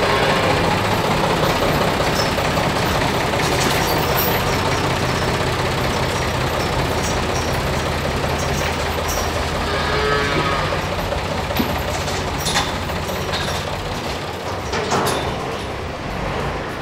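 Case/David Brown 885 tractor engine running steadily as its front loader brings in and tips a scoop of sawdust, with a heifer mooing once about ten seconds in.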